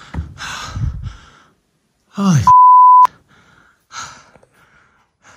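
A single steady censor bleep, just over half a second long, comes about two and a half seconds in and covers a swear word right after a falling exclamation. Around it are a person's breathy gasps and sighs.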